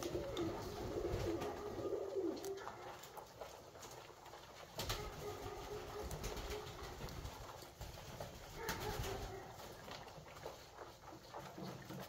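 Alföldi-Körösi tumbler pigeons cooing, in low bouts during the first two seconds, again about five seconds in and near nine seconds, with scattered sharp taps among them.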